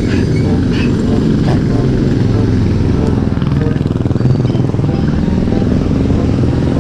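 A motor vehicle engine running steadily, with a few light ticks in the first second and a half.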